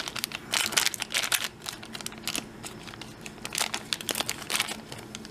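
Crinkling of a thin plastic toy wrapper being handled and cut open with scissors, in irregular crackles that are busiest in the first second and a half.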